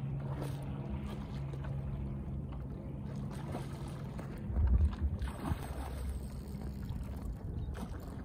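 A steady low motor hum over wind and water noise, with a brief louder low rumble about halfway through.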